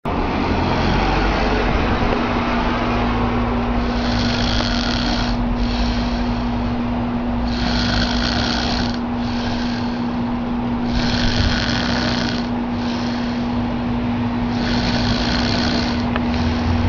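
A man snoring, one snoring breath roughly every three and a half seconds, over a steady hum.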